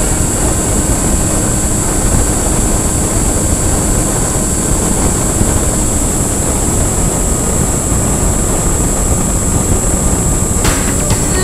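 X-8 FPV model aircraft in flight: a steady rush of propeller and wind noise with a thin, steady high whine. Music comes in about a second before the end.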